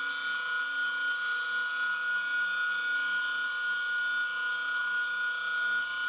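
A steady, high-pitched electronic drone made of many fixed tones, sounding through a homemade spring reverb built from an old space heater's coiled heating elements, with a faint low pulsing underneath.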